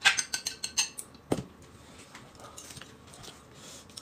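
Chopsticks tapping and scraping against plates as food is pushed from one plate to another: a quick run of light clicks, a single louder knock of a dish about a second in, then only faint clinks.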